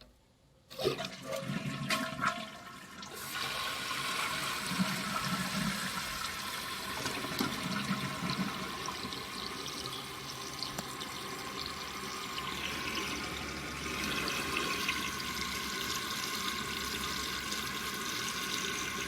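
1999 Kohler Wellworth toilet flushing: a few clunks in the first couple of seconds, then a steady rush of water through the tank.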